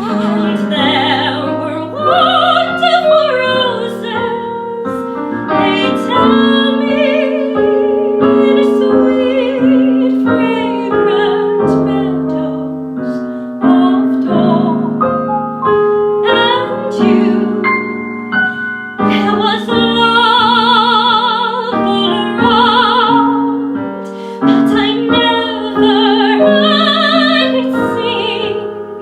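Classically trained female voice singing in operatic style with a strong vibrato, accompanied by piano.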